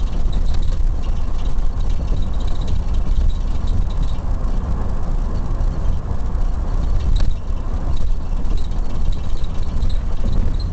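Steady road and engine rumble inside the cabin of a moving police car.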